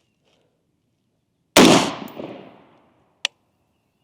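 A single unsuppressed rifle shot from an Adams Arms 20-inch SPR AR-15 build, a sharp crack with a tail of echo dying away over about a second. It is fired to test whether the rifle cycles on a carbine buffer; it ejects the case but fails to strip the next round. A short sharp click follows near the end.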